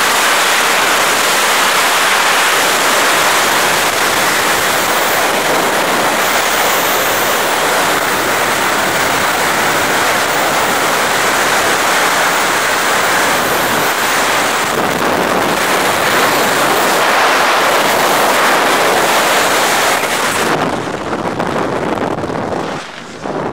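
Freefall wind rushing over a skydiver's camera microphone: a loud, steady roar of wind noise. About three seconds before the end it drops off sharply, losing its hiss and becoming gusty and uneven.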